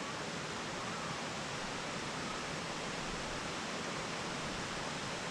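Waterfall running with a steady, even rush of falling water.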